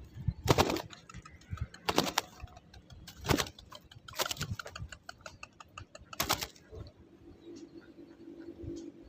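Spotted doves at a decoy cage: a string of sharp clattering knocks, about one every second or so, then a low steady cooing tone in the last two seconds.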